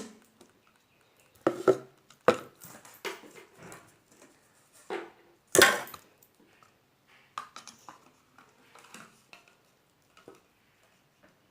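Scattered sharp knocks and clicks from slime and its small plastic containers being handled, several strong ones in the first six seconds and fainter ones after.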